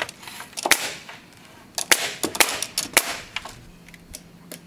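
Bostitch pneumatic framing nailer firing nails one after another into a 2x8 board overhead, a series of sharp bangs about half a second to a second apart, a few of them fainter.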